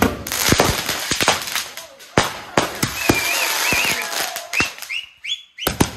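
Aerial fireworks going off: a run of sharp bangs over a steady crackling hiss, with a few short rising whistles near the end.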